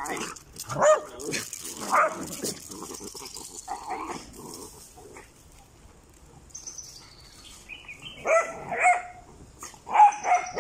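Dogs barking in short bursts as they chase and tussle in play; a few barks at first, a quieter stretch in the middle, then a quick run of barks near the end.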